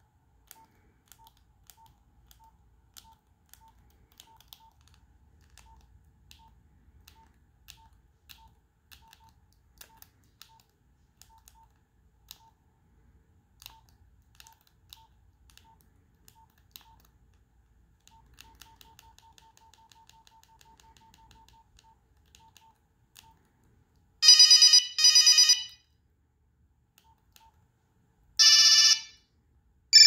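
Nokia 3390 keypad beeps: a short single-pitch beep with each key press, about one every half second, with a quick run of beeps partway through as the menu is scrolled. Near the end, loud short snippets of the phone's preloaded monophonic ringtones play, twice in quick succession and then again twice more, as tones in the ringing-tone list are previewed.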